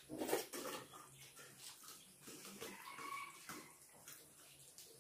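Mouth sounds of people eating rice and dal by hand: irregular wet chewing and lip smacking, with fingers squishing rice on steel plates.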